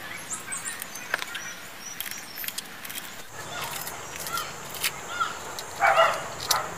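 Garden ambience: small birds chirping, with a steady high insect buzz from about halfway and a louder animal call near the end. Light clicks scattered through.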